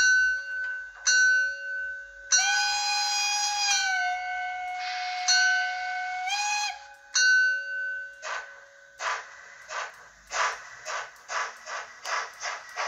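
A model steam locomotive's sound decoder blowing its whistle: two short toots, a long blast that dips slightly in pitch, then another toot. About eight seconds in, steam chuffing starts and quickens as the locomotive pulls away.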